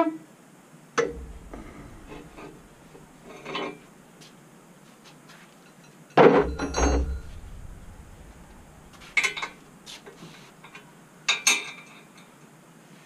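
Scattered metal clanks and knocks from hand tools and parts against an engine block being torn down on an engine stand. The loudest, longest clatter comes about six seconds in.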